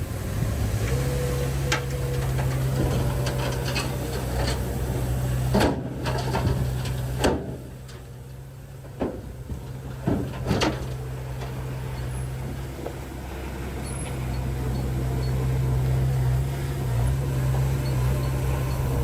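Heavy earth-moving machine's diesel engine running steadily, with a series of sharp knocks and clanks in the middle stretch.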